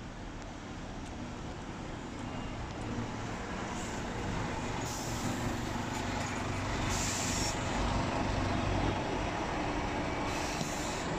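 Scania K230UB city bus's five-cylinder diesel engine running as the bus pulls in close and slows to a stop, growing louder. Three short hisses of air from its air brakes.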